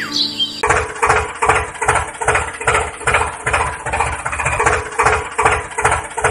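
Tractor engine running at low revs, chugging with a steady beat of about two to three pulses a second. It starts about half a second in.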